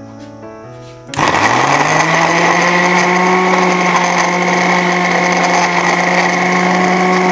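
Electric mixer grinder (mixie) puréeing mango pulp. About a second in, its motor starts with a quick rising whine, then runs at a steady, loud, even pitch. Faint background music is heard before it starts.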